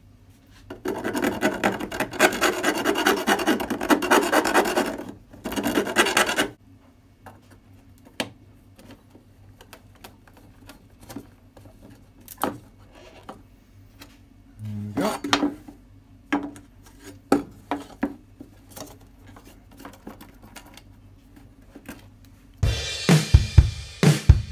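A hand file rasping back and forth on a steel plate for about five seconds, followed by scattered light taps and clicks as the plate is handled. Near the end a cordless drill with a step drill bit starts cutting into the steel plate.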